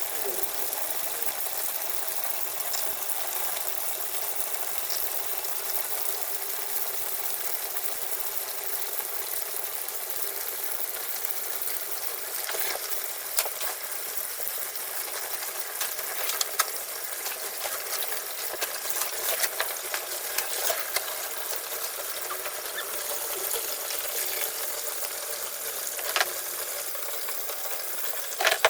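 Steady hiss and splash of water while laundry is washed in a twin-tub washing machine, with scattered clicks and knocks from about halfway through.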